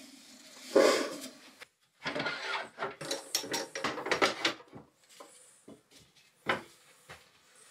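Turned wooden blank being taken off a stopped wood lathe by hand: wood and metal rubbing, scraping and knocking, busiest in the middle, with one sharp knock near the end.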